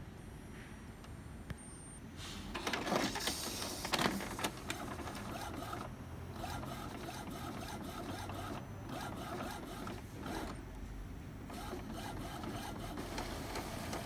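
Epson M200 inkjet printer printing a nozzle check page: about two seconds in, the paper feed and print head carriage start up, running with uneven surges and short pauses through the rest of the stretch.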